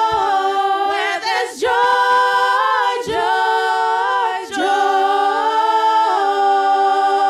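Several women's voices singing a worship song together a cappella, in harmony, with no instruments: held notes in short phrases that pause for a breath every second or two.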